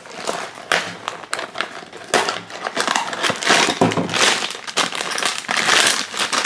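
Foil blind bag crinkling and crackling as hands handle it and tear it open. A small cardboard box is handled near the start.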